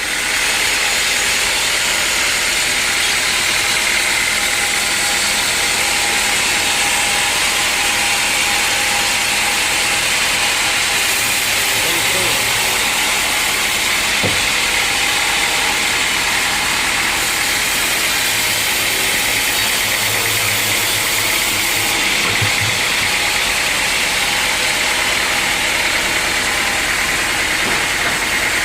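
Sawmill machinery running steadily: an engine-driven saw at work, a constant mechanical drone with a strong hiss.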